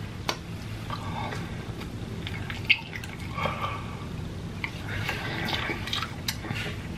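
Close-up chewing of a cheese-sauce-covered hash brown, with scattered short, sticky mouth clicks.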